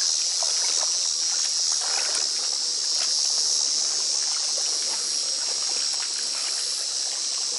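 A steady, high-pitched insect chorus, with small splashes and trickling as hands push floating algae through shallow pond water.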